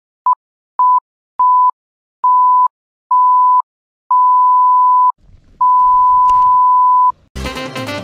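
A pure bleep tone near 1 kHz sounds seven times with silence between. Each beep is longer than the last, from a blip to about a second and a half. Music starts near the end.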